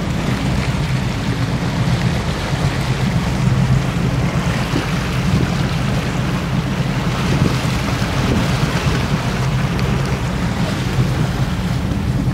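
Motorboat under way: a steady engine drone with rushing water and wind buffeting the microphone.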